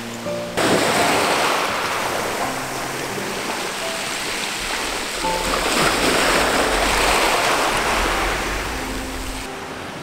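Sea waves washing in over a gravel beach, with a surge of surf coming in suddenly about half a second in and the wash easing near the end. Background music with sparse held notes plays over it.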